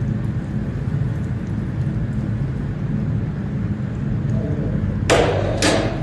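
Steady low rumble of a bell foundry while molten bell bronze (copper with 18% tin) is poured into a bell mould, flames flaring from the mould's mouth. About five seconds in come two short, loud bursts of noise, half a second apart.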